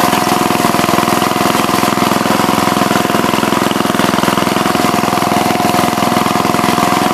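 Small single-cylinder gasoline engine of a re-powered Whipper walk-behind mower running steadily at a constant speed while mowing, with a thin steady whine over it.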